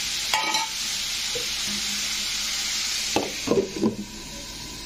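Chopped chayote (chow chow) sizzling steadily in hot oil in a pan. A little past halfway the sizzle falls away and a few short knocks and scrapes of the metal pan and lid follow.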